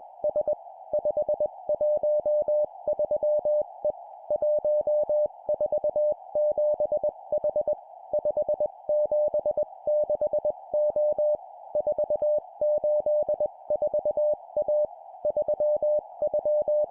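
Morse code (CW) at 20 words per minute: a single mid-pitched tone keyed on and off in dots and dashes, sent as groups of three numbers and a letter with short pauses between groups. It plays over a steady band of hiss, like a receiver's filtered audio.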